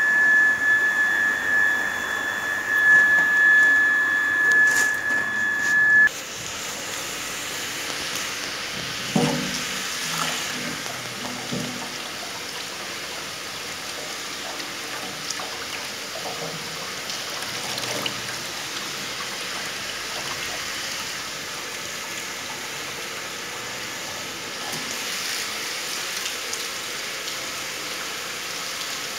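Water rushing steadily through a water filter system during backwash, an even hiss like heavy rain. For the first six seconds a loud steady high-pitched tone sounds over it and then cuts off suddenly.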